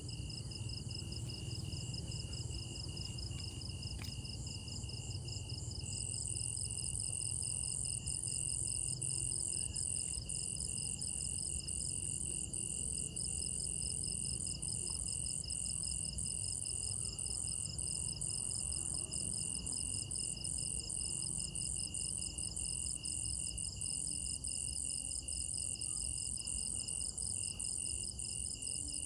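Night chorus of crickets: several chirping in fast, even pulses at different pitches, with the highest-pitched one growing louder about six seconds in. A low steady rumble lies underneath.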